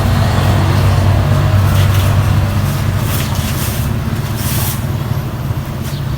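A steady low motor hum, with a few brief scraping or hissing sounds over it.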